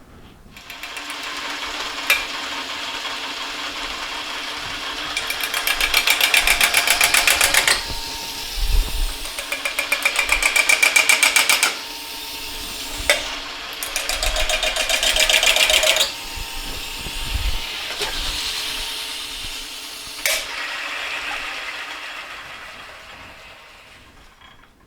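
Metal lathe running with sheet-metal scraps clamped in the chuck, the cutting tool chattering in three long spells of fast, even rattling as it tries to turn the scraps into round plates, with a few sharp clicks between. It picks up about a second in and winds down near the end. The cut is not going well.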